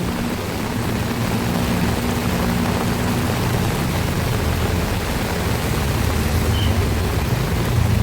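Heavy rain falling steadily, a dense even hiss. Under it runs a low, steady hum, its higher tone dropping away about three seconds in.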